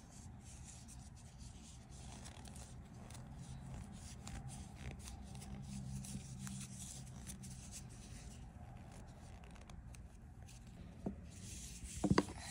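Hands rubbing and turning a crocheted yarn cover fitted on an AirPods case: soft, steady rubbing and rustling, with a few sharp clicks near the end.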